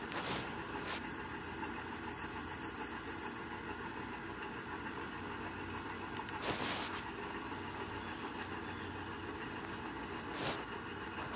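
Domestic cat purring steadily close to the microphone, a low pulsing rumble, with a few brief rustles of handling.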